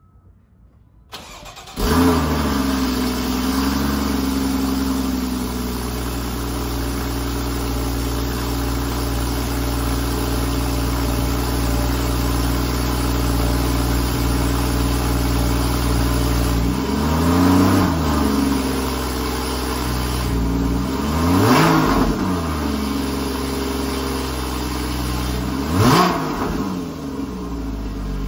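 2013 Porsche Boxster's flat-six engine cold-starting: a brief crank, then it catches about two seconds in with a flare of revs and settles to a steady idle that drops a little lower after a few seconds. The exhaust note is blipped with three short revs in the second half.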